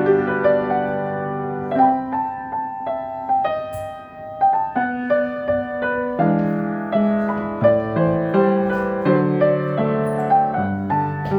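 Solo piano playing a gentle piece: a single-note melody over held bass notes, several notes a second, with a brief softer pause about four seconds in.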